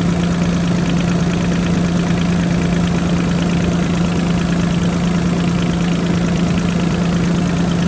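Bobcat E26 mini excavator's Kubota diesel engine idling steadily, a loud, even hum that holds one low pitch.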